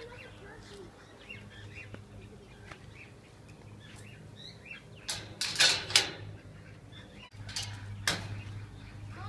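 A brood of ducklings peeping, many faint short high chirps, with two loud rustling bursts about five seconds in and again near eight seconds, over a low steady hum.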